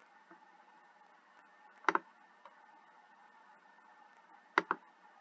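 Two computer mouse clicks, one about two seconds in and one near the end, each a quick pair of sharp ticks, over faint steady hiss.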